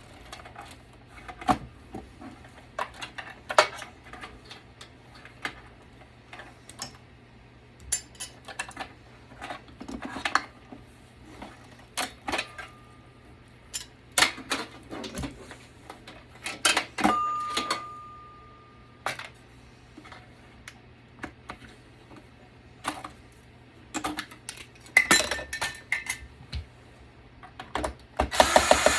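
Scattered clicks, clinks and knocks of screws and metal parts being handled as a desktop computer is taken apart. A brief motorised whir starts near the end.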